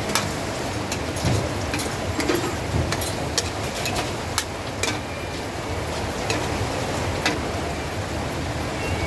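Kitchen clatter in a small canteen: scattered sharp clinks and knocks of utensils and dishes over a steady rushing background noise.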